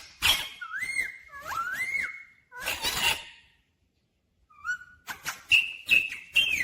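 Indian ringneck parakeet calling: a string of short whistled calls that slide up and down in pitch, broken by a brief pause about two thirds of the way through, then sharper, louder calls near the end.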